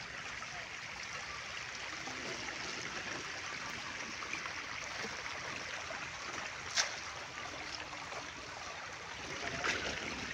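Steady hiss of running water, with a sharp knock about seven seconds in and a smaller one near the end.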